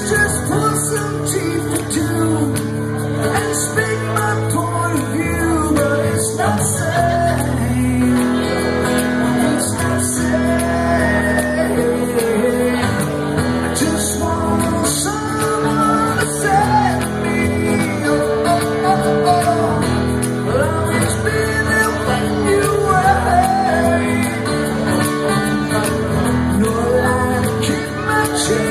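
A song being sung with instrumental accompaniment.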